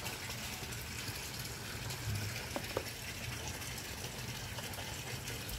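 Steady rushing background noise, with two faint clicks a little past halfway.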